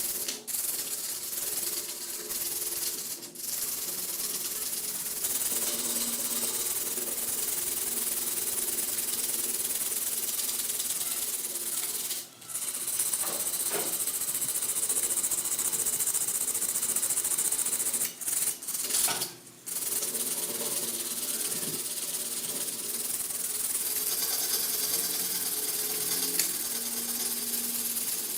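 Steady abrasive sanding or grinding against the rusty steel of an axe head, stopping briefly a few times.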